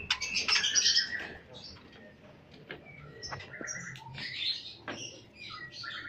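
Many caged lovebirds chirping and chattering together, with a loud flurry in the first second and another around four and a half seconds in.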